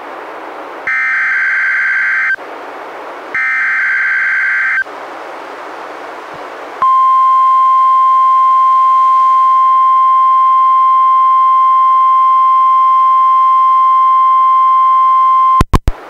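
NOAA Weather Radio Emergency Alert System activation: two shrill, warbling SAME digital header bursts, each about a second and a half long with pauses between, then the steady 1050 Hz warning alert tone held for about nine seconds, which cuts off with a couple of clicks near the end. This marks the start of a Special Marine Warning broadcast.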